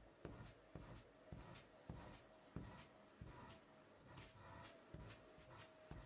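Faint, scratchy strokes, roughly two to three a second, as a vacuum cleaner's hose nozzle is rubbed over a fabric sofa cushion, with a faint steady tone underneath.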